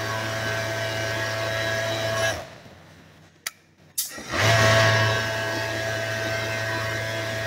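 Industrial overlock (serger) sewing machine running at speed while stitching denim seams. It stops a little over two seconds in, two sharp clicks sound in the short pause, then it starts up again and runs steadily.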